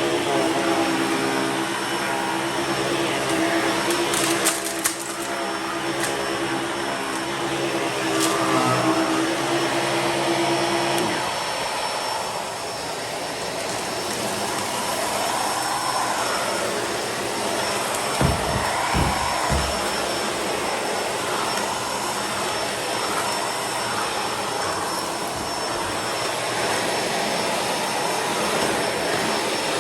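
Bissell Pet Hair Eraser Turbo upright vacuum running over rubber-backed mats. Its steady motor hum gives way about a third of the way in to a rougher rushing sound, with a few low thumps later on.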